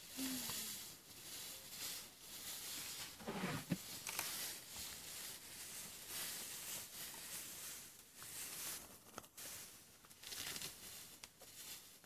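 Rustling and tearing of long grass as an African elephant moves and feeds close by, with a short low sound about three and a half seconds in.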